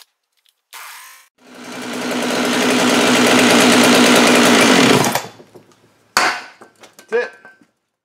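Two-stroke chainsaw engine comes up to speed about a second and a half in and runs high and steady. Then it drops in pitch and dies about five seconds in, as brake cleaner is sprayed under the intake manifold. Stopping that quickly is the sign of an air leak into the crankcase, which the owner puts down to a ripped intake boot or a blown base gasket.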